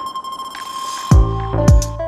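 Electronic background music: a held synth tone over a quiet bed, then a deep kick-drum beat comes in about a second in.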